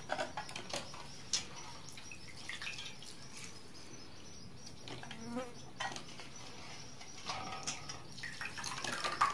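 Faint wet squishing and dripping as hands squeeze soaked poha (flattened rice) out of water in a steel bowl, with a few small scattered taps.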